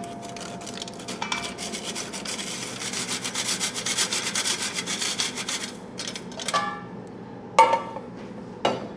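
Hand-cranked stainless steel flour sifter being turned over a steel mixing bowl: a fast, rasping scrape of the wire agitator against the screen as the dry ingredients pass through, lasting about six seconds. Then three metal clanks that ring briefly, the loudest about two thirds of the way in, as the sifter is knocked against the bowl and lifted out.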